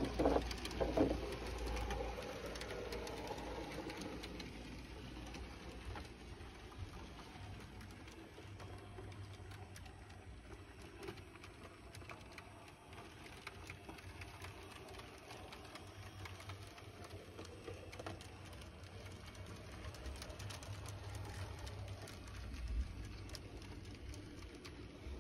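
Heljan 009 narrow-gauge model locomotive Lyn running along the track with its coaches: the faint hum of its small motor with a steady patter of light clicks from the wheels on the rails. A few louder knocks come about a second in.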